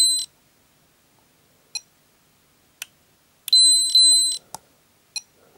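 Peak Atlas ESR70 capacitor/ESR meter giving its high double beep as each reading completes, once right at the start and again about three and a half seconds in. It is re-measuring, over and over, a primary filter capacitor whose ESR keeps jumping between readings: the capacitor is failing intermittently. A few faint clicks fall between the beeps.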